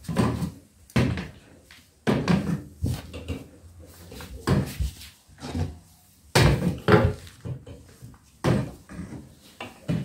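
Flat mop with a microfiber head being worked under a bed frame across laminate flooring: irregular knocks of the mop head and handle against the frame and floor, with quieter sliding scrapes between.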